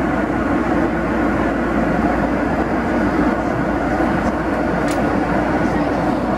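Steady engine and airflow noise of a Boeing 767-300 in flight, heard inside the passenger cabin.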